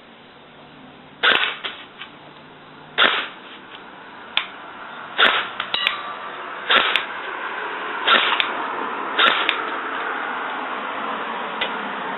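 Electric airsoft carbine firing on semi-automatic: about seven single sharp shots at uneven gaps of a second or so.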